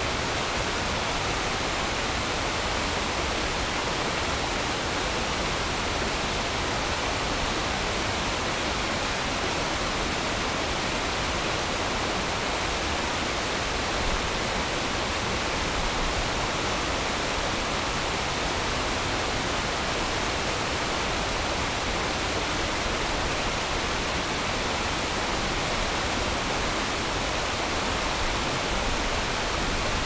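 A small river waterfall rushing steadily: an even, unbroken hiss of falling water.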